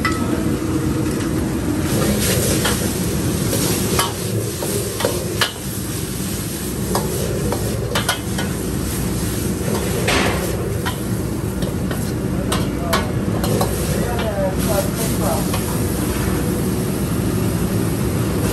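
Stir-frying in a steel wok over a high gas flame: food sizzling while a metal ladle scrapes and knocks against the wok at irregular intervals, over a steady low rumble.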